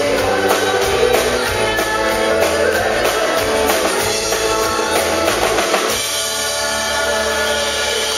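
Live band with a woman singing into a microphone: drum kit and bass guitar drive a steady beat, then about six seconds in the drums stop and the band holds a sustained chord, the close of the song.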